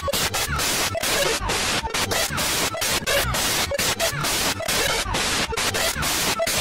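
Harsh, loud static-like noise, heavily distorted and chopped into quick stutters, with faint squeaky glides buried in it.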